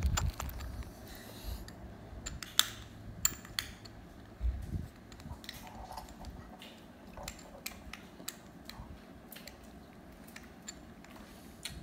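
Faint, irregular small clicks and taps of hands handling small hard objects, over a low rustle.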